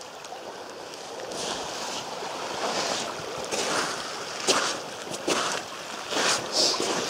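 Small stream of water running across a washed-out road, a steady rushing noise, with a few short scuffing sounds between about four and seven seconds in.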